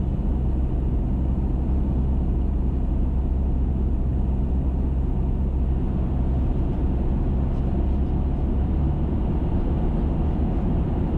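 Car driving at a steady speed: an even, low drone of engine and road noise that holds steady throughout.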